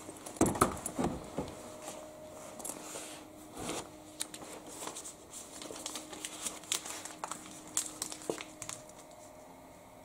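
Scattered crinkling, rustling and sharp clicks of things being handled, over a faint steady hum.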